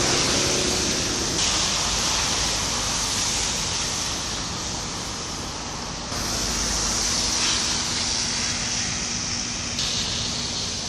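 Steady rushing outdoor background noise with no clear single event, with a faint low steady hum coming in about six seconds in.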